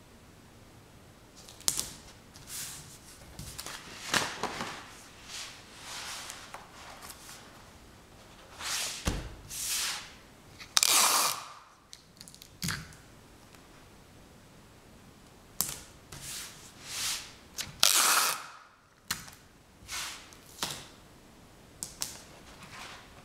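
Close-up handling noise: an irregular run of sharp clicks and short rustling swishes with quiet gaps between, two of the swishes louder than the rest, about halfway through and again near the end.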